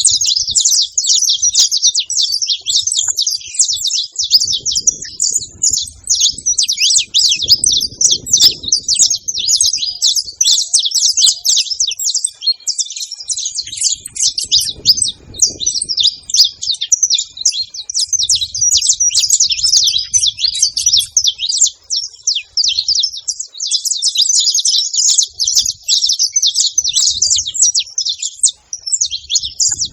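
A flock of saffron finches chirping together without pause, a dense overlapping chatter of short high calls.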